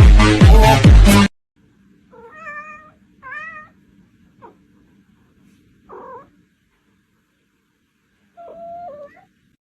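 Electronic dance music that cuts off about a second in, followed by a domestic cat meowing several times with pauses between, the last meow longer and drawn out near the end.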